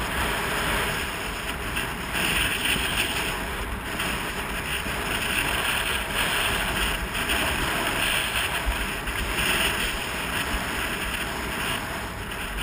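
Wind rushing over the microphone of a camera carried down a ski slope, with the hiss and scrape of skis on snow swelling and easing in waves every second or two.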